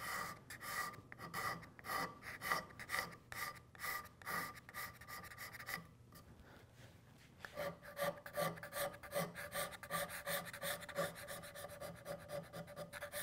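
Steel card scraper, held almost flat, scraping back and forth across hardwood end grain in quick strokes about two a second, with a short pause a little before halfway. The paring cuts are taking out circular saw-blade marks on the end of the board.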